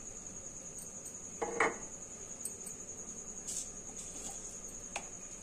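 A few light knocks and clinks of kitchen containers being handled, loudest in a short clatter about one and a half seconds in and a single click near the end, over a steady high-pitched whine.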